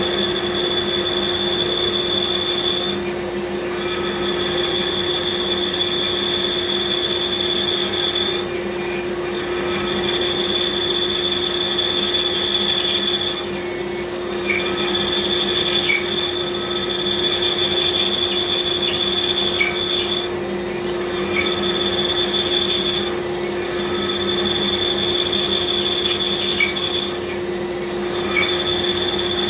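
Bandsaw running and cutting through a wooden block, with a steady motor hum and a high whine from the blade. The whine dips out for about a second every few seconds as the cut goes on.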